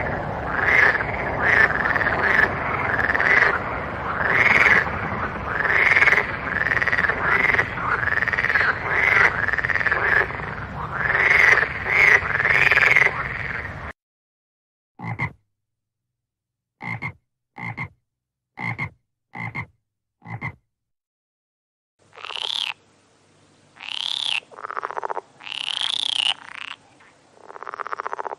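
Frogs croaking: a dense run of repeated calls that stops abruptly about halfway, then about six short, separate croaks roughly a second apart, then louder, higher-pitched calls near the end.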